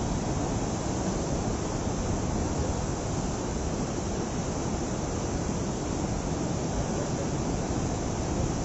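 Steady rushing of a muddy river in heavy flood, its fast current churning in standing waves.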